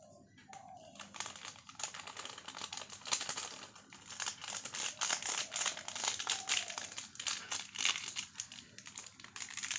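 Eno fruit salt (sodium bicarbonate and citric acid) fizzing on contact with milk as the powder is shaken from its foil sachet, together with the sachet crinkling. It is a dense, uneven crackle that starts about a second in.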